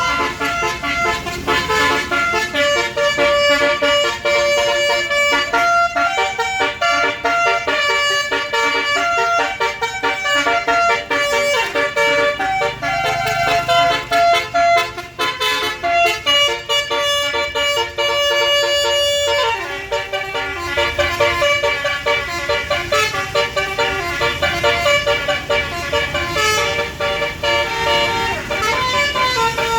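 Bus 'basuri' telolet horn, a set of electric air-horn trumpets, playing a melody of held notes that step from pitch to pitch. It switches to a different tune about two-thirds of the way through.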